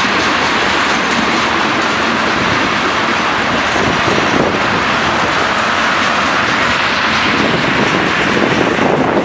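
Freight train of tank cars rolling past close by: loud, steady noise of steel wheels running on the rails.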